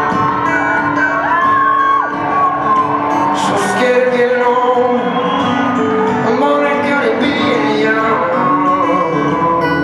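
Live acoustic guitar playing with a wordless sung or whistled melody gliding over it. A whoop from the crowd comes about three and a half seconds in.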